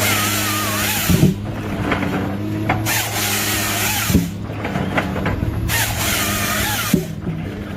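A machine saw cutting through wood in three cuts about three seconds apart, over the steady hum of an engine.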